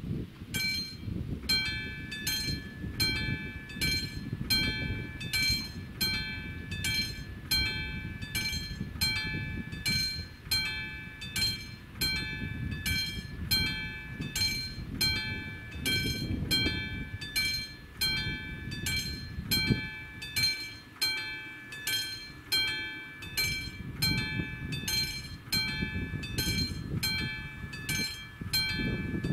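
Level-crossing warning bell starting to ring about half a second in, then striking steadily at about two strokes a second with a bright metallic ring: the crossing has activated for an approaching train. A low wind rumble on the microphone lies underneath.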